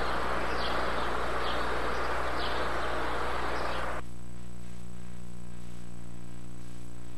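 A steady hiss with faint high chirps repeating about once a second, like crickets. About four seconds in it gives way to a steady low electrical hum.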